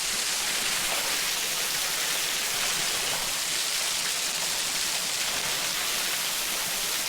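Small waterfall pouring, a steady, even hiss of falling and splashing water.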